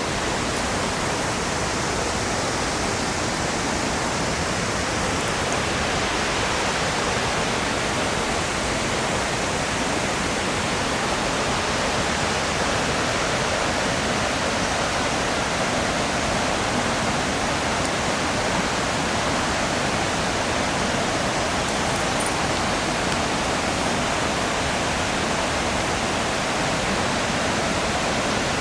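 Steady rush of falling water from Hagoromo Falls, an even roar with no breaks.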